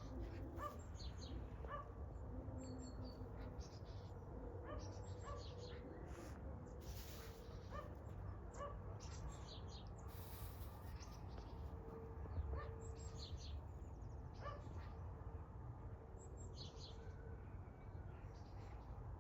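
Small birds chirping faintly in short, scattered calls over a low steady background rumble, with a couple of brief rustling noises.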